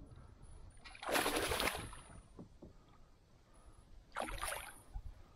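A hooked fish splashing and thrashing at the water's surface during the fight, in two bursts: a longer one about a second in and a shorter one about four seconds in.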